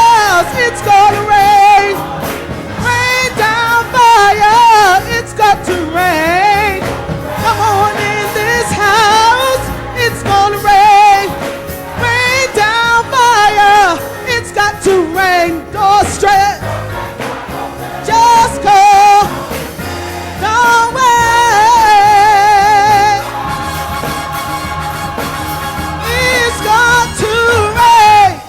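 A song: a solo voice sings long, sliding runs with strong vibrato over steady accompaniment, holding one long wavering note about three quarters of the way through.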